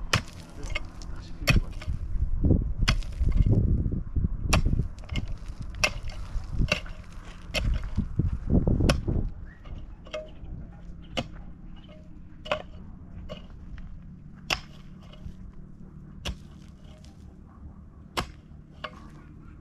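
Pickaxe striking hard, stony soil in a steady rhythm, a sharp hit about every second and a half, with low rumbling under the strokes in the first half that eases off about halfway.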